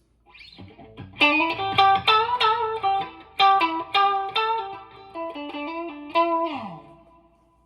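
Electric guitar played without overdrive on a 1971 Gibson Les Paul Recording, with both low-impedance humbucker pickups selected: a melodic run of single picked notes that ends with a slide down the neck about six and a half seconds in, then the last note fades out.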